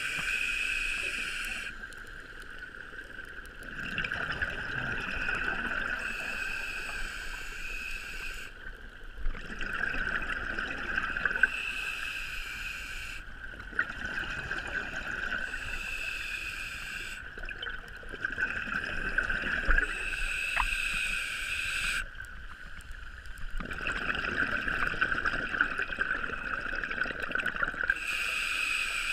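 Scuba diver breathing through a regulator underwater: a repeating cycle of breaths and bubbling exhalations, about one every four to five seconds.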